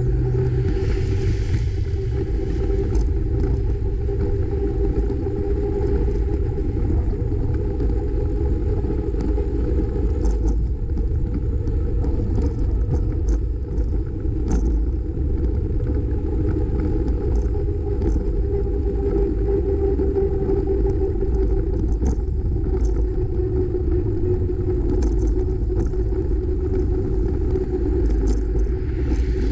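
Steady low rumble of wind on the microphone and tyre and road vibration from a camera mounted on a bicycle riding along a paved highway shoulder, with faint clicks here and there.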